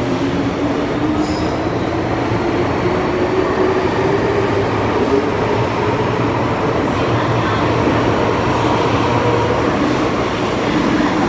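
MTR M-Train electric multiple unit pulling out of a station and running past the platform as it picks up speed: a steady rumble of the cars with a whine that slowly rises in pitch.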